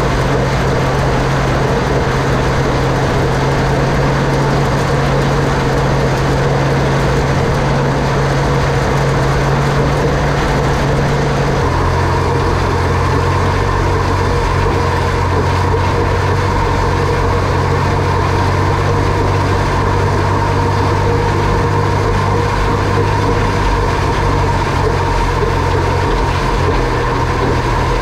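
Valmet 65 tractor's diesel engine running steadily under load while it tows a fertilizer spreader across the field. About twelve seconds in, the low drone shifts lower in pitch.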